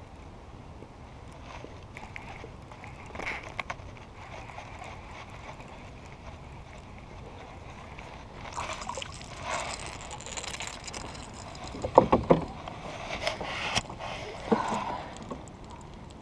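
Water splashing and sloshing around a kayak, with several sharp knocks about three quarters of the way through, as a small bass is brought in.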